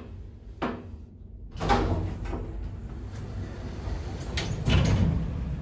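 Glass-panelled sliding car doors of a 1991 Lifton elevator modernised by Otis open on arrival: a sharp click about half a second in, then the doors slide open about a second and a half in, and a steady background hiss follows. A few sharp clicks or knocks come near the end.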